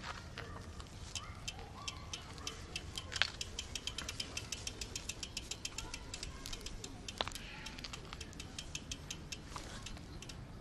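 Bicycle freewheel hub ticking quickly and evenly as the bike coasts, several ticks a second, with two louder knocks about three and seven seconds in.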